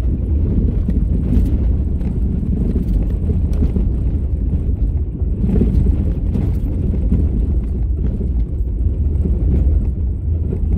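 Car driving on a gravel road: a steady low rumble of tyres and engine, with scattered knocks and rattles from the rough surface.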